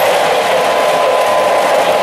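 O-gauge model electric trains running on the layout's track: a steady mechanical whir of motors and gearing mixed with wheel noise on the rails, with a thin, steady high whine over it.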